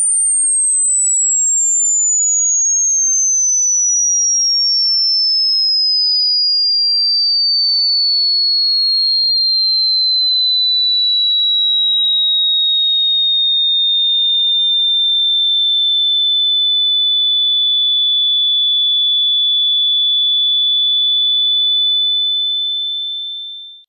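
A single high-pitched pure electronic sine tone, loud and steady in level, gliding slowly down from very high to high pitch over the first half and then holding one high note, fading out in the last couple of seconds.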